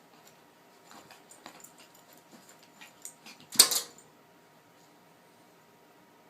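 A dog's sounds with faint scattered clicks and jingling, and one loud, sharp sound lasting about half a second, about three and a half seconds in.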